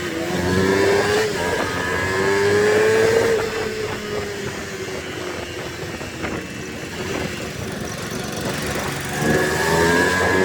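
Motorcycle engine accelerating: its pitch climbs over the first few seconds, eases off, then climbs again near the end.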